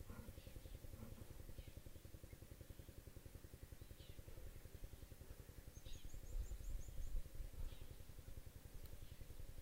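Faint steady low, rapid throbbing of a motor running at a distance, swelling briefly about six seconds in, with short bird chirps every second or so and a quick high trill just before the swell.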